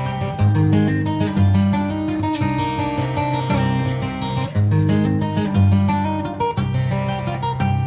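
Acoustic guitar music: fast picked notes over a moving bass line.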